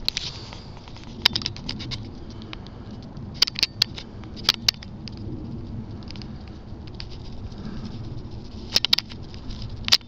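Crunching and snapping of dry grass and twigs underfoot, in scattered clusters of sharp crackles, over a steady low rumble.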